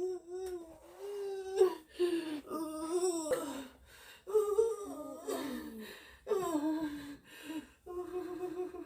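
A woman moaning and whimpering without words, as if in pain: about six drawn-out cries with short breaks between them, several sliding down in pitch.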